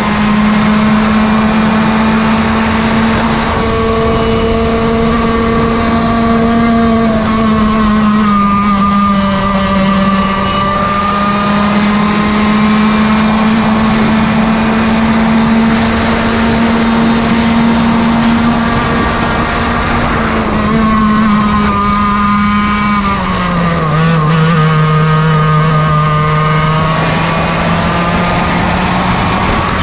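Yamaha KT100 two-stroke kart engine with can muffler running at high revs. Its note holds mostly steady, sags briefly about eight seconds in, then drops clearly about three-quarters of the way through before climbing back near the end.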